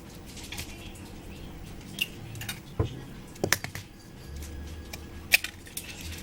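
Kitchen clatter: a handful of sharp clicks and knocks of utensils and containers being handled, with a low steady hum coming in about four seconds in.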